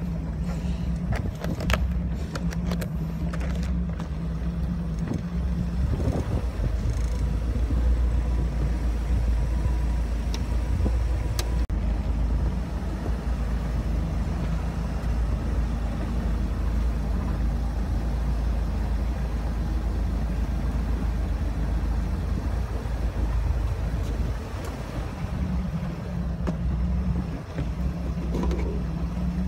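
Small fishing boat's engine running steadily at trolling speed, with wind rumbling on the microphone, heaviest through the middle.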